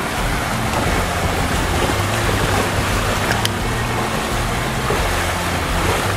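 Water rushing past the sailing boat's hull and wake, with wind on the microphone, over background music. A single sharp click comes about three and a half seconds in.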